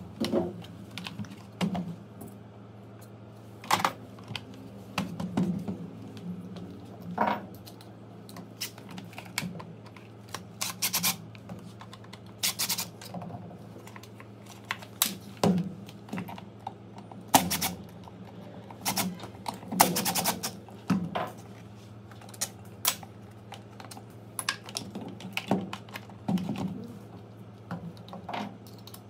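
Irregular clicks and knocks of a Makita UH007G cordless hedge trimmer's plastic housing and loose parts being handled and set down on a concrete floor, over a steady low hum.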